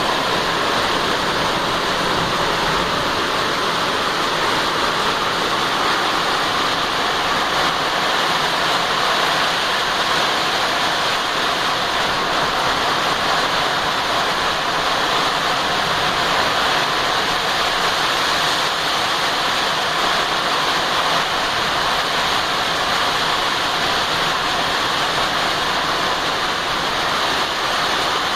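Rain falling steadily, a dense even rushing hiss with no pauses.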